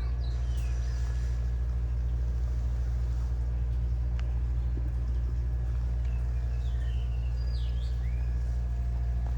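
A steady low machine drone, like an idling engine, with a few short bird chirps about half a second in and again around seven seconds.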